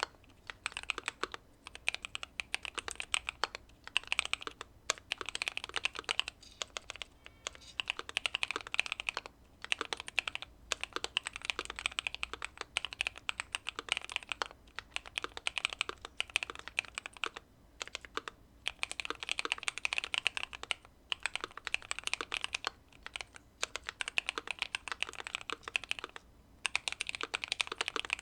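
Typing on a Keychron Q2 mechanical keyboard with factory-lubed Pearl Lemon switches, tape-modded and foam-dampened: rapid key clacks in runs of a few seconds with brief pauses between them.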